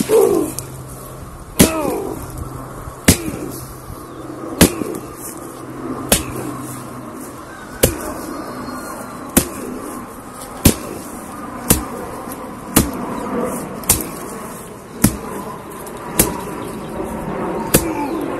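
Repeated heavy blows of a long-handled tool smashing a carved pumpkin on a wooden plank: about fourteen strikes, one every second to second and a half, coming a little faster later on.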